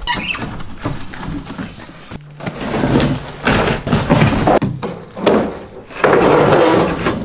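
Wooden doghouse being shoved across a wooden trailer deck: irregular thumps and knocks with scraping of wood on wood, turning into a longer, louder scrape near the end.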